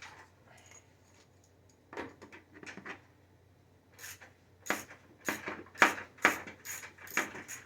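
Sharp metallic clinks and taps of a wrench working on a steel mower deck cover: a few knocks about two seconds in, then a run of about two sharp taps a second from about halfway to the end.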